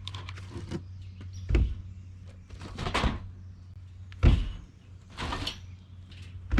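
Utility-cart wheels being taken out of a cardboard box and stacked: a few thuds as they are set down, the loudest about four seconds in, with scraping and rustling of the packing between.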